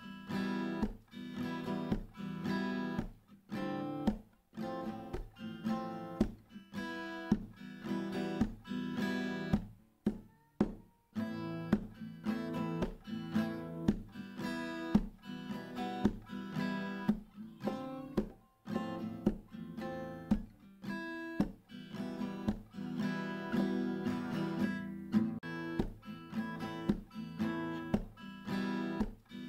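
Background music: acoustic guitar strummed and plucked in a steady, even rhythm.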